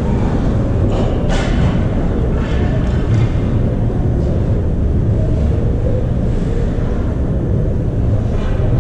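Ice rink ambience during a youth ice hockey game: a steady low rumble with a sharp knock about a second and a half in and a few fainter knocks after it.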